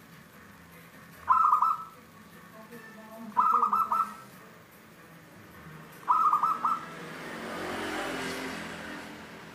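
Caged zebra dove (perkutut) singing three short cooing phrases, each a quick run of rolling notes, two to three seconds apart. Near the end a broad noise, like a passing vehicle, swells and fades.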